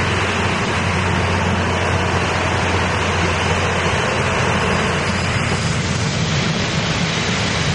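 Taiwan Railway DMU2800 diesel multiple unit running at the platform: a loud, steady drone of its diesel engines and blowers over a low hum.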